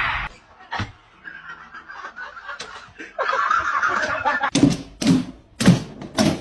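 A dog barking: four loud, sharp barks about half a second apart in the second half.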